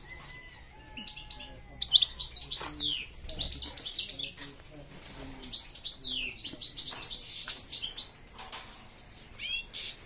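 Caged finches singing: several short bursts of high, rapid twittering song with brief pauses between them.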